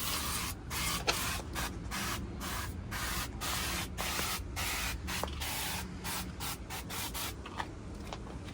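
Rust remover being sprayed onto a rusty steel cab floor in a quick series of short spray bursts, about one or two a second, with brief pauses between them.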